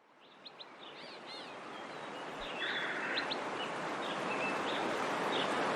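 Outdoor ambience fading in from silence: a steady background hiss that grows louder, with small birds chirping and twittering on top.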